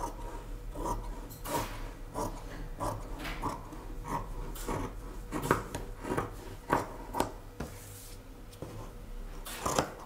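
Paper dress pattern being handled and worked on: irregular rustling, scraping and light knocks of paper and drafting tools.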